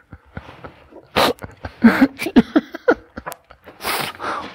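A person voicing a toy character makes several short, wordless whiny vocal noises with bending pitch, with a breathy huff about four seconds in: a reluctant groan at being asked to make an effort.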